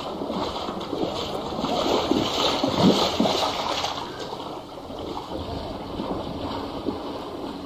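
Water splashing as people wade through floodwater, loudest in the first half and quieter after about four seconds.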